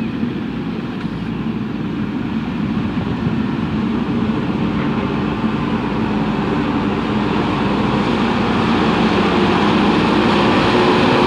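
JCB 3DX backhoe loader's diesel engine running steadily as the machine works across the dirt, growing gradually louder as it comes closer.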